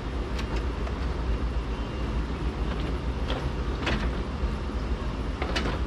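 A handful of sharp clicks and knocks from hands working parts and clips in a car's engine bay, over a steady low rumble. The loudest knock comes about four seconds in, and two follow close together near the end.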